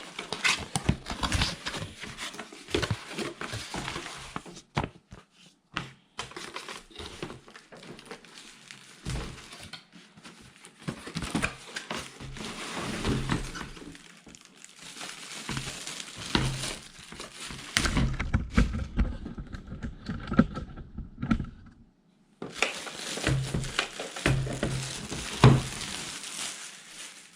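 Cardboard box and packing being opened and handled to unpack a mini fridge: paper and plastic wrap crinkling and rustling, with scattered knocks and thuds.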